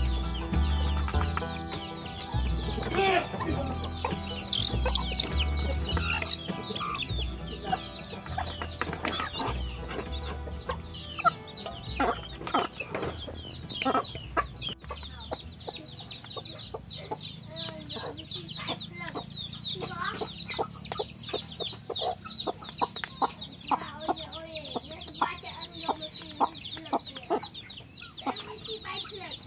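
Chicks peeping constantly in short high chirps while hens cluck, with sharp taps of beaks pecking feed from a plastic tray. Background music with a low bass plays for the first half and stops about halfway through.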